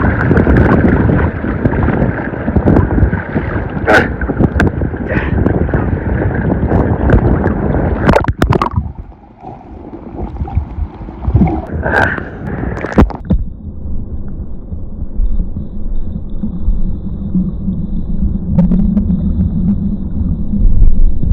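Ocean water sloshing and splashing with wind buffeting the microphone, with scattered knocks. About eight seconds in it drops suddenly to a quieter, duller rumble.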